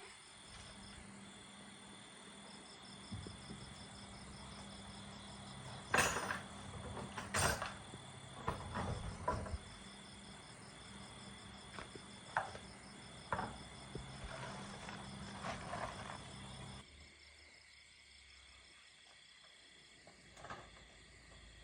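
Insects chirping steadily in high, evenly broken trills, with scattered sharp knocks and clicks. A low hum cuts off about 17 seconds in.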